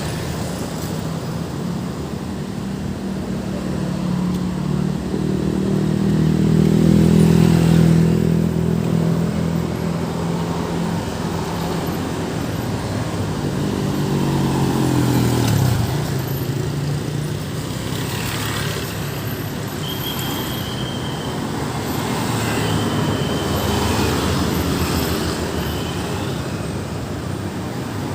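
Steady road traffic on a busy street. Heavy vehicle engines pass close by: one builds up loud, and another's note drops in pitch as it goes past. Two brief high tones are heard later on.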